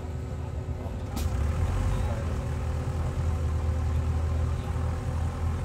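An engine running steadily at low speed, a deep even rumble. A short sharp hiss comes about a second in, and the rumble is louder after it.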